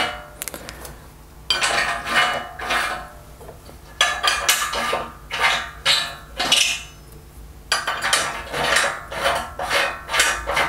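Steel socket-head bolts clinking against a steel connector plate and square steel tube as they are fitted by hand into nuts welded inside the tube. It is a quick run of metallic clinks and clicks in three spells with short pauses between them.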